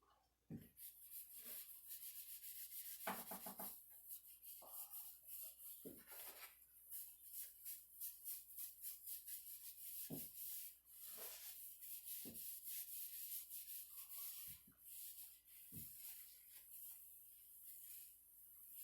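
Quick, repeated hand-rubbing strokes over the wood of a cedar chest, a rapid scratchy hiss that starts about a second in, with a few light knocks and a brief squeak.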